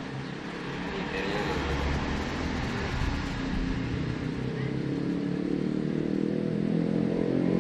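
A motor vehicle's engine running, growing steadily louder.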